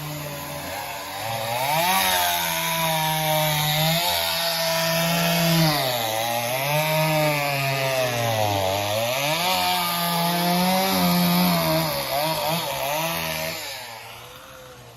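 Chainsaw running at high revs, its pitch sagging and recovering again and again as it bogs down in cuts, then winding down near the end.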